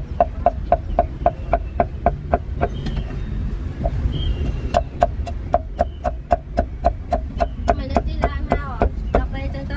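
Cleaver chopping roast meat on a wooden block in rapid, even strokes, about five a second, stopping briefly around three seconds in and then starting again.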